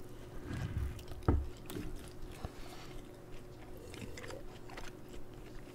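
Close-miked biting and chewing of samsa, the flaky baked meat pastry, with small wet mouth clicks. A single sharper knock comes about a second in.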